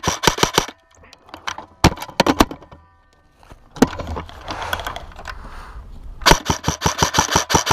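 Airsoft gun firing: a short rapid burst at the start, a few single shots around two and four seconds in, then a long full-auto burst of about ten shots a second from about six seconds in.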